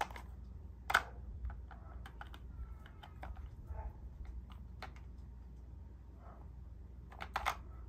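Plastic clicks and clacks of a bone-shaped treat puzzle toy as a cat paws at and noses its green plastic cups, knocking them loose. The sharpest clack comes about a second in, with a quick pair near the end.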